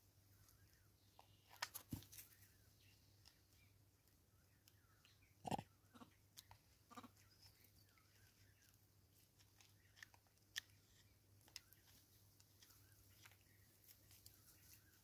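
Mostly near silence with scattered faint clicks and crunches as vervet monkeys pick and chew seed from a plastic bottle feeder, the loudest a short sound about five and a half seconds in.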